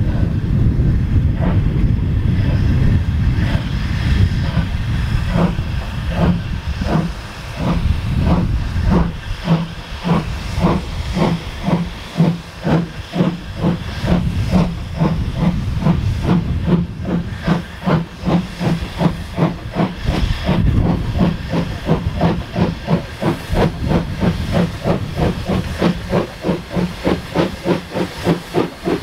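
Steam locomotive getting under way: a heavy hiss of steam at first, then exhaust beats that start about six seconds in and steadily quicken as the engine picks up speed.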